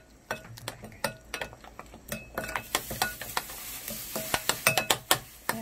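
Metal spoon briskly stirring a thick, wet red-pepper-flake and soy sauce seasoning paste in a glass mixing bowl: rapid clicks of the spoon against the glass over a wet scraping, mixing sound.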